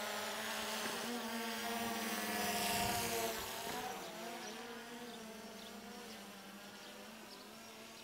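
DJI Phantom 3 quadcopter's propellers buzzing in flight overhead, a whine of several tones. It swells and rises a little in pitch two to three seconds in, then drops and fades steadily.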